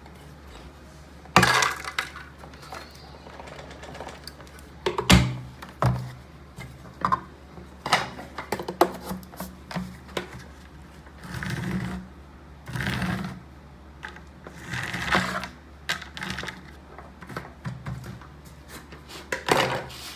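Handling of a Shark vacuum's plastic parts: irregular sharp clicks and knocks, with several short rustling swells of debris shifting, over a faint low hum.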